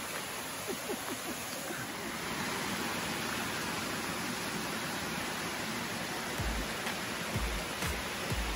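Steady rushing of a waterfall, a continuous even hiss of falling water, with a few low thumps in the last two seconds.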